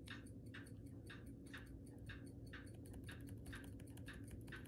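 Laptop keyboard key, F1 on a Lenovo ThinkPad T490, tapped over and over, about four light clicks a second, to get into BIOS setup as the machine restarts.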